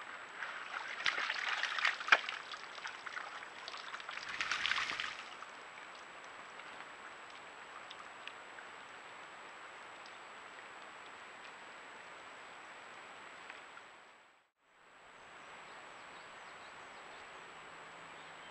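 Red deer stag moving in a shallow mud wallow: splashing and squelching of mud and water for the first five seconds or so. After that there is only a steady faint hiss.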